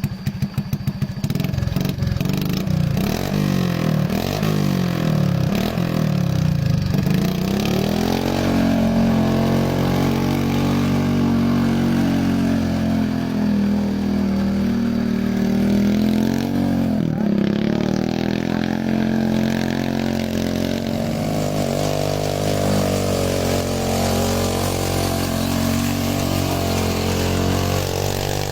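Motorcycle engine on a homemade rice-paddy tractor running, its pitch rising and falling with the throttle for the first several seconds, then settling into a steadier run with one brief dip about halfway through.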